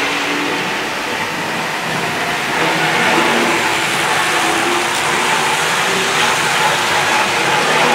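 Several Tri-ang Hornby OO gauge model trains running together: a steady whirr of the locomotives' electric motors with the running noise of metal wheels on the track.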